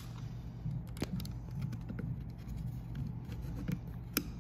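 A few sharp clicks and light scratches of steel needle-nose pliers on wire terminals and the plastic motor housing as the brush connector wires are bent down, over a steady low hum.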